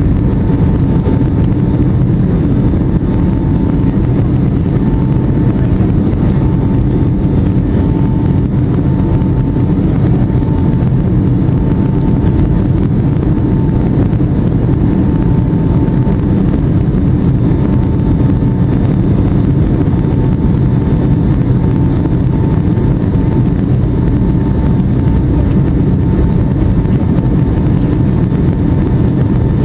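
Steady cabin noise of a jet airliner in cruise, the deep rumble of engines and rushing air heard from a window seat over the wing, with a faint wavering whine above it.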